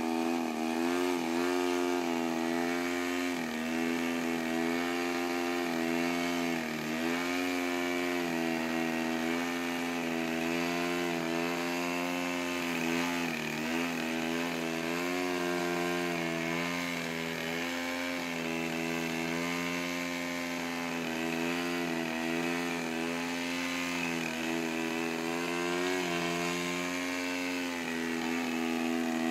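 Gasoline two-stroke engine of a large radio-control Yak 55 aerobatic plane in a prop-hang hover, buzzing steadily. Its pitch dips and climbs back every few seconds as the throttle is worked to hold the plane in the hover.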